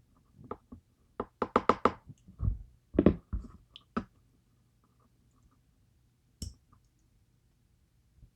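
Sharp knocks and taps from a DOM IX Twinstar lock's plug being knocked to shake its keypins loose: a quick run of about five taps a second in, then a few heavier thumps, and a single click later on.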